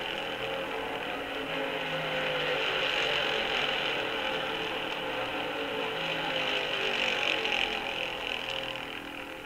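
Pack of 1964 NASCAR stock cars' V8 engines at racing speed, a dense drone of many engines at slightly different pitches, heard from an old vinyl record. The sound eases off a little near the end.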